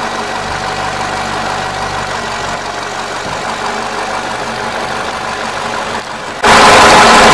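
Peugeot 207's replacement petrol twin-cam four-cylinder engine idling steadily, which the mechanic calls excellent. About six and a half seconds in, the sound jumps suddenly much louder.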